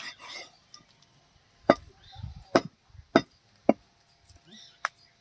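Heavy butcher's knife chopping goat liver on a wooden chopping block: five sharp knocks of the blade striking the wood at uneven intervals, the last one lighter.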